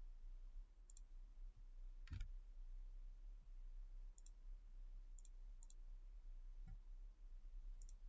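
Faint computer mouse button clicks, about seven of them spread out, the one about two seconds in a little louder with a dull thump, over a low steady mains hum.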